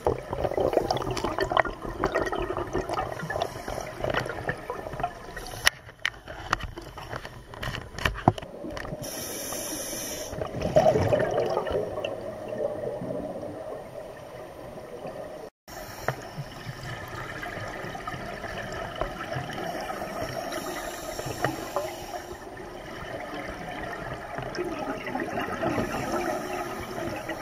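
Muffled underwater bubbling and rushing from scuba divers' breathing, swelling and fading unevenly, with a brief dropout a little after halfway.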